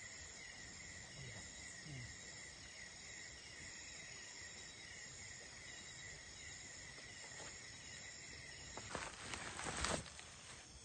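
Insects chirring steadily in a continuous, pulsing chorus. Near the end a louder burst of noise lasts about a second.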